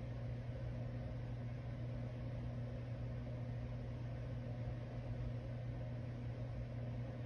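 A small electric fan running: a steady low motor hum with an even airy hiss.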